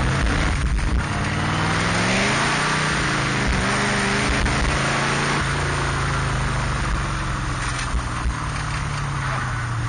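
Cheetah race car's engine heard from the open cockpit, revving up under acceleration and then easing back about halfway through, over a steady rushing hiss of wind and spray.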